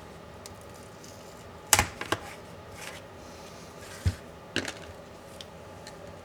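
Scattered clicks and knocks of laptop parts and tools being handled during disassembly. The sharpest click comes a little under two seconds in, followed by a duller low knock about four seconds in and a quick pair of clicks soon after.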